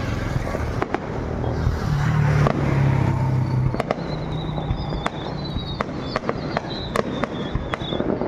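Aerial fireworks going off: a continuous run of sharp bangs and pops over a dense background rumble, with a wavering high whistle in the second half.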